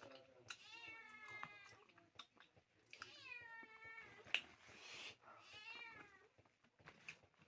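A cat meowing faintly, three drawn-out calls that rise and fall in pitch. A sharp click, the loudest moment, comes about four and a half seconds in.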